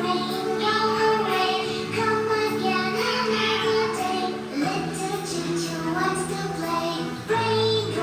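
Music with a child's singing voice, like a children's song, over a backing of held notes and a steady bass.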